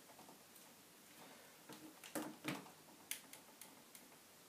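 Faint handling of a laptop LCD panel and its plastic lid frame: a few light clicks and ticks between two and three seconds in, otherwise near silence.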